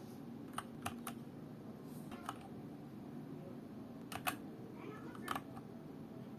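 A few separate clicks of keys being pressed on a Keychron K4 V2 mechanical keyboard with Gateron Brown switches, single presses and quick pairs spread apart rather than continuous typing, over a low steady hum.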